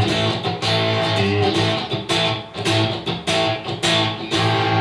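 Fender electric guitar through a Line 6 POD HD500 set to a crunch tone, playing strummed, lightly overdriven chords with repeated picked attacks and ringing notes.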